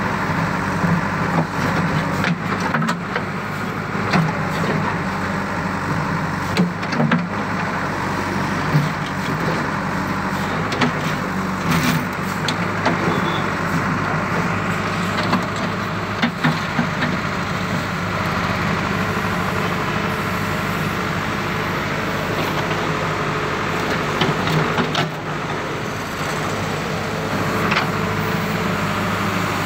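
JCB backhoe loader's diesel engine running steadily as the backhoe digs a trench, with scattered knocks and scrapes of the bucket in the soil.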